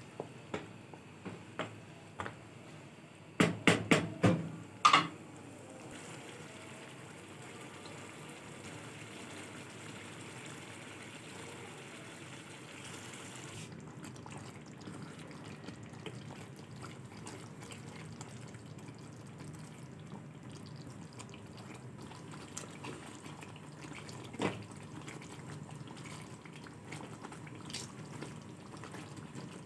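Creamy chicken karahi gravy bubbling steadily in a pan on the stove. A few sharp knocks come in the first seconds, with a louder cluster of them about four seconds in.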